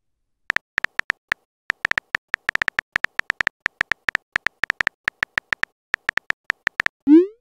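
Smartphone keyboard key-tap clicks: short, high ticks, about six a second in irregular runs, as a text message is typed. Near the end comes a short rising swoop, the message-sent sound.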